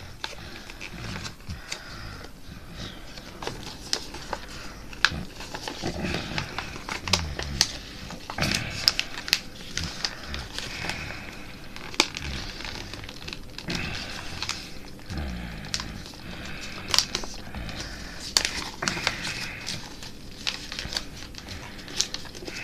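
Calendar paper being handled and cut with scissors: crinkling and rustling, with many sharp, irregular snips and clicks.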